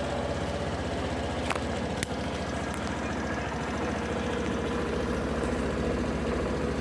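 Suzuki Burgman Street EX 125 scooter's single-cylinder engine idling steadily just after starting, with no panel rattle: the fairing vibration has been fixed.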